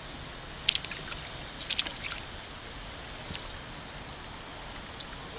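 Steady wind and water noise at the water's edge, with a few sharp clicks: a loud one just under a second in, a quick cluster around two seconds, and fainter single ticks later.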